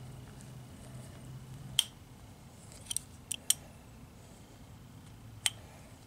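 Metal wrench clinking against a steel toe-arm turnbuckle as it is handled and fitted: a handful of sharp, isolated metallic clicks spread over a few seconds.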